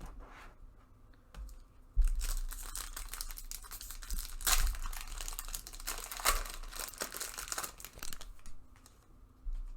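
Crinkling and tearing of a trading-card pack wrapper being handled, a dense crackle that starts sharply about two seconds in and goes on for about six seconds.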